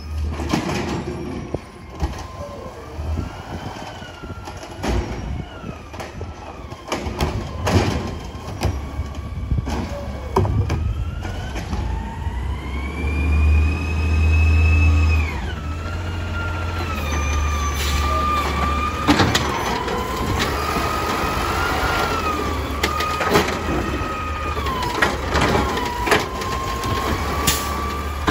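Autocar ACX garbage truck with an Amrep automated side-loader body, working along the curb and driving up. A steady engine rumble runs under a whine that repeatedly rises and falls in pitch, with one climb and a sudden drop about halfway through, and scattered metallic clanks.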